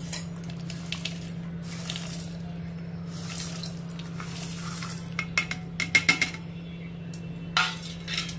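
Roasted peanuts, garlic cloves and sesame seeds being tipped off a stainless steel plate into a steel mixer-grinder jar, sliding and rattling against the metal, with a run of sharp steel-on-steel clinks about five to six seconds in and another near the end. A steady low hum runs underneath.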